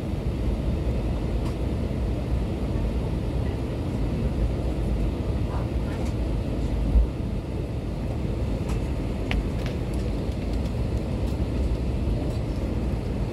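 Steady low rumble and air rush in the cabin of an Airbus A320 waiting at the gate, with one thump about seven seconds in and a few faint clicks.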